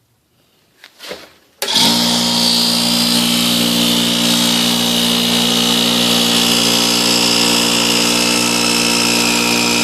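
Craftsman 20-gallon air compressor starting up abruptly and running steadily, pumping air into an empty tank after a piston rebuild kit was fitted. A couple of faint clicks come just before it starts.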